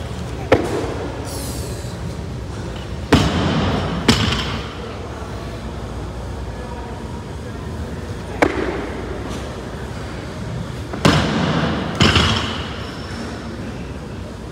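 Loaded barbell with rubber bumper plates dropped twice onto wooden plyo blocks. Each drop lands with a heavy bang and bangs again about a second later as it bounces, and a sharp clink comes a few seconds before each drop as the bar leaves the blocks. Steady gym din underneath.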